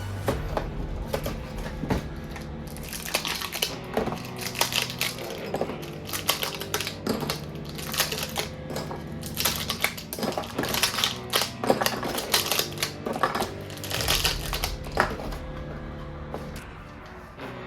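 Rapid, irregular clicking and crackling of plastic toy-gun parts and packaging being handled, over steady background music.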